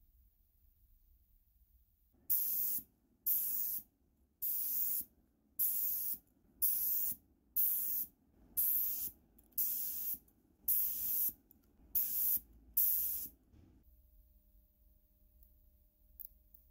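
Spray paint hissing from an aerosol can in about eleven short bursts, roughly one a second, as a fishing reel spool is sprayed black.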